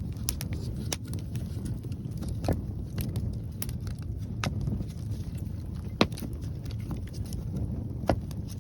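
Wood campfire crackling, with scattered sharp pops, the loudest about six seconds in. A steady low rumble of strong wind on the microphone runs underneath.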